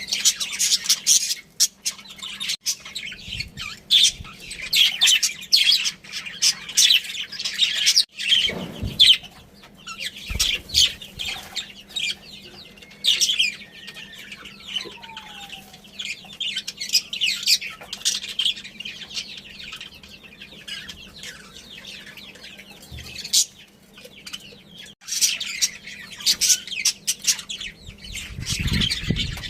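Budgerigars chattering and chirping continuously in rapid, high twittering warbles, thinning out for a few seconds in the middle before picking up again. A short low thump about eight seconds in.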